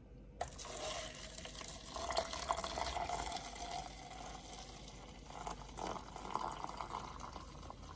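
Liquid pouring or streaming into a container, starting suddenly about half a second in with a click. It runs with a splashing hiss that is strongest in the first few seconds and lighter toward the end.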